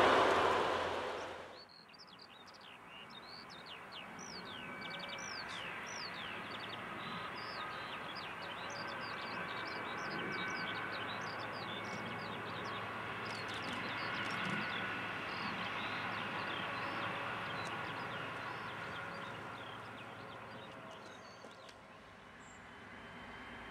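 A passing train fades out in the first two seconds. Then many birds chirp over the distant rumble of a diesel-hauled train, which swells towards the middle and fades again.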